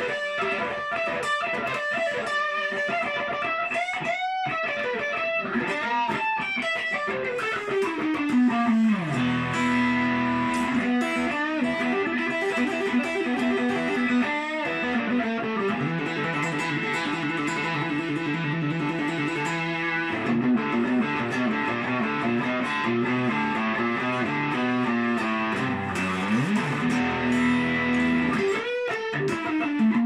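Electric guitar played solo, holding long notes that slide smoothly down and up in pitch.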